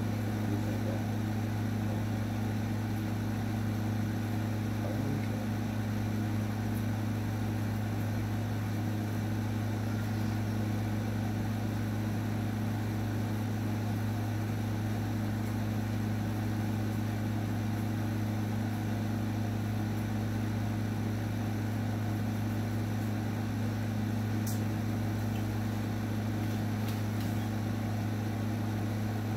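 Electric dog clippers running with a steady, even hum while a small dog is trimmed.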